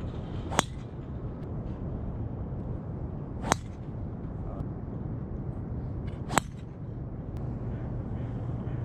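Three golf tee shots, each a single sharp click of a driver's clubhead striking the ball, about three seconds apart, over steady wind noise on the microphone.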